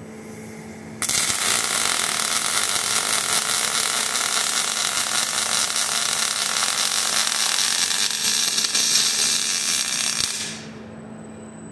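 Robot-held MIG welding torch laying a weld on a steel truss: the arc strikes suddenly about a second in and burns steadily for about nine seconds, then stops and dies away near the end.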